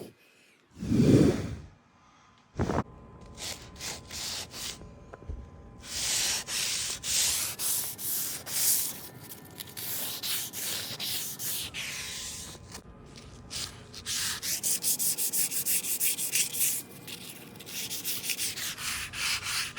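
Sandpaper rubbed by hand along the edges of CNC-cut shelf boards in quick, rhythmic strokes, with runs of about four strokes a second. A short dull sound and a sharp knock come in the first few seconds.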